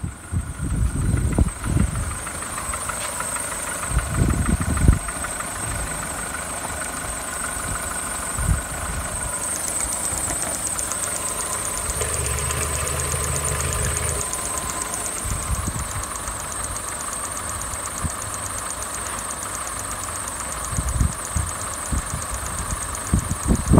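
Volkswagen 1.4 16V (AXP) petrol four-cylinder engine idling steadily, with a steady high whine over it. A few low knocks in the first seconds.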